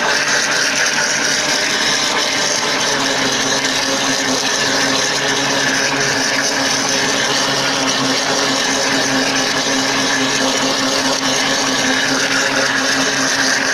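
Countertop blender running steadily at speed, loud and even, its motor hum holding one pitch while it blends a thick mixture of cream and dulce de leche.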